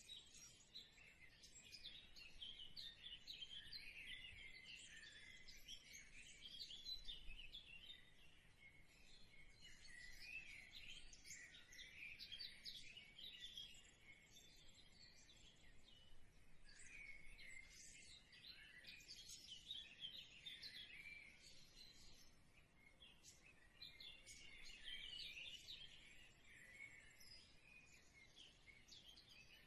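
Faint birds chirping and twittering, many short overlapping calls coming in waves with brief lulls between them.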